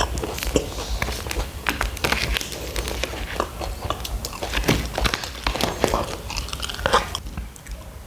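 A person chewing and biting kunafa, the crunchy shredded-pastry top crackling in many quick, irregular crunches that thin out near the end.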